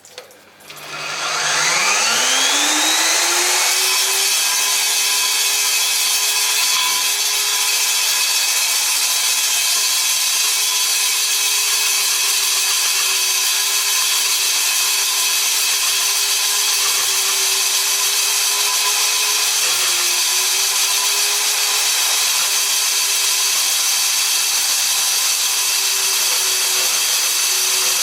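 DeWALT D21585 diamond core drill spinning up about a second in with a rising whine. It then runs steadily while the diamond bit grinds through a concrete foundation, with a steady hiss over the motor tone. Around two-thirds of the way through, the motor briefly drops in pitch, as if under extra load, and recovers.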